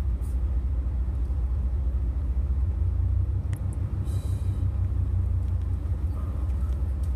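Pickup truck engine running at low revs with a steady low rumble, heard from inside the cab as the truck creeps down a rocky dirt trail. A brief hiss comes about four seconds in.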